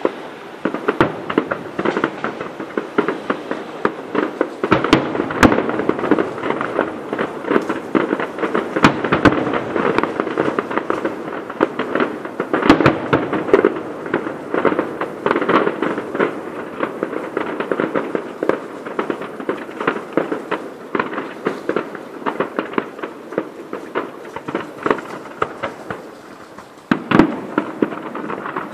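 Fireworks display heard from a distance: a dense run of sharp pops and crackles, with louder bangs here and there and the volley growing louder near the end.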